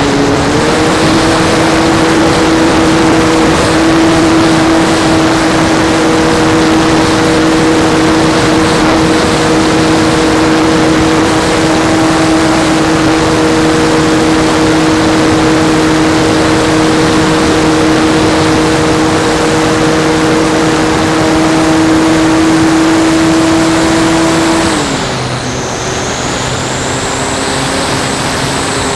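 Model airplane's motor and propeller, heard from a camera on the plane's nose, running at a steady pitch with heavy wind rush through launch and climb. About 25 seconds in the pitch drops as the motor slows, and a thin high whine comes in.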